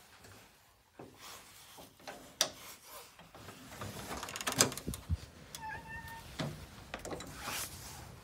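Metal swing-bar door guard and door lock clicking and knocking as a door is unlocked and opened, with the loudest knock just past halfway. A cat meows briefly soon after.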